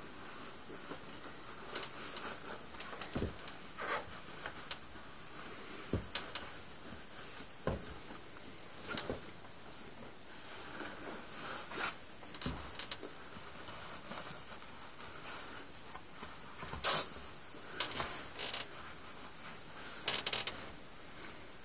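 Handling noise of sneakers being turned over in hand close to a phone microphone: scattered rubbing and rustling with light knocks and a few low thumps.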